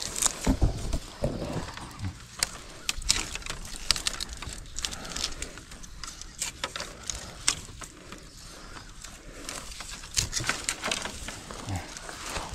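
Dry bamboo stems and twigs crackling and snapping at irregular moments as someone works through a thorny bamboo clump, breaking off side shoots, with light rustling between the cracks.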